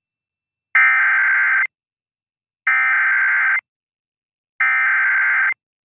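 Emergency Alert System SAME header: three identical bursts of high digital data tones, each just under a second long with about a second of silence between them. These are valid encoded alert tones that can set off a real alert receiver.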